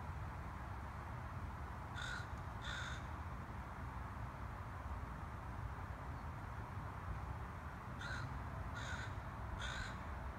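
A steady breeze hiss over a low rumble, as a bird calls in short notes: twice about two seconds in and three times near the end.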